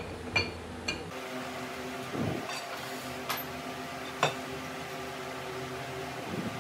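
Steel pipe wrench and vise clinking and clicking as the wrench is handled and set on a pipe: several short metallic clicks, the sharpest about four seconds in, and one duller knock. Over it runs a steady mechanical hum from a fan or motor.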